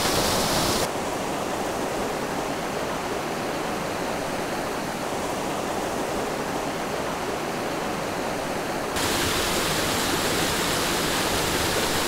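Steady rushing of a waterfall and the shallow rocky stream below it. About a second in the rush turns duller and a little quieter, and it brightens again near the end.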